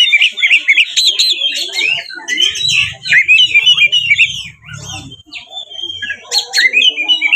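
Oriental magpie-robin (kacer) in full aggressive, fighting-style song: a fast, unbroken run of varied whistles, chirps and harsh notes, easing briefly about two-thirds through before picking up again.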